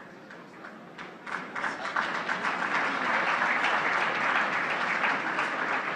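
A large audience applauding, starting about a second and a half in and quickly building to steady, dense clapping.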